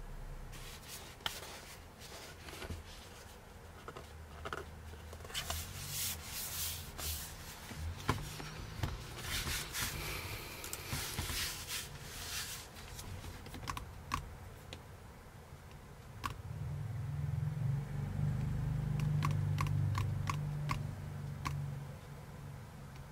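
Hands handling a MacBook with a vinyl skin on its palm rest: rustling and scraping as they rub and press it, then a quick series of light clicks near the end.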